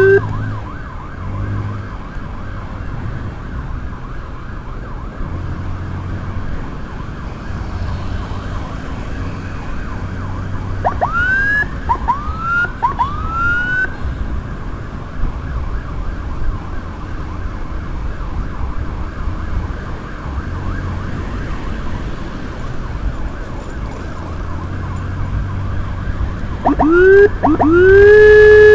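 Electronic siren on an escort motorcycle, a Whelen unit, gives three short rising whoops about eleven seconds in. Near the end it sweeps up twice more and holds a loud steady wail. Underneath is a steady rush of wind and road noise from riding.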